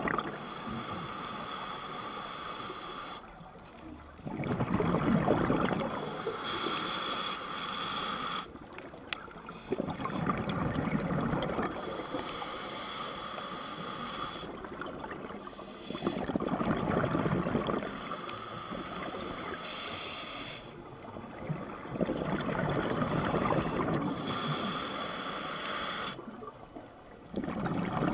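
Scuba diver breathing through a regulator, heard underwater through the camera housing: a burst of bubbling exhaled air about every six seconds, with quieter hissing stretches and short gaps between breaths.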